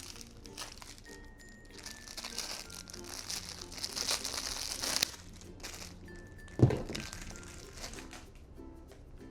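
Microwave packaging crinkling and rustling as it is unwrapped, building from about two seconds in and stopping abruptly about five seconds in, then a single thump a little later. Light background music plays throughout.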